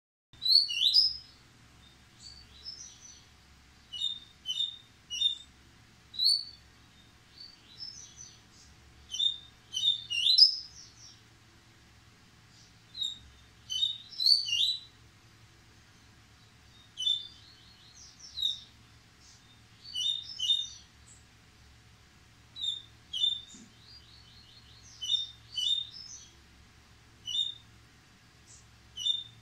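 Caged yellow-bellied seedeater (coleiro-baiano) singing its short, quick, high song phrase over and over, one every second or two, with brief pauses between phrases.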